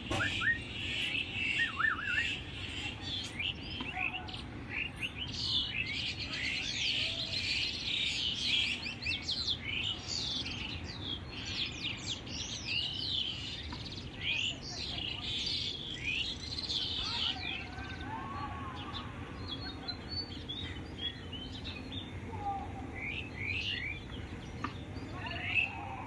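Many small birds chirping together in a morning chorus of quick, high sweeping chirps. The chirping is thickest through the first two-thirds and thins out later, over a low, steady background rumble.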